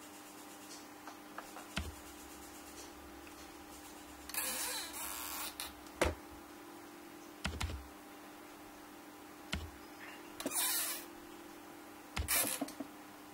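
A kitten moving and pawing inside a clear acrylic box: irregular light taps and knocks on the plastic, with a few short scratchy rustles, over a faint steady hum.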